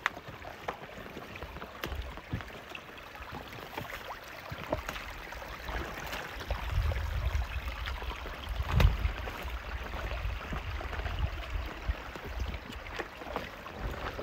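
Footsteps picking over shoreline rocks under a heavy pack, with many small knocks and scrapes. A heavier thump comes about nine seconds in. A low rumble sits on the microphone through the second half.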